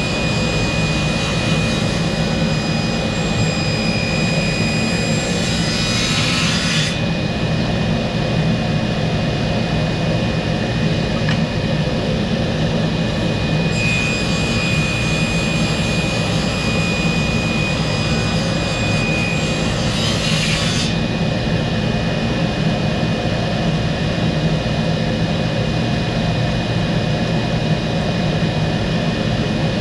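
Woodworking power tool running steadily. A higher hiss comes in twice, lasting about seven seconds each time, and drops out between.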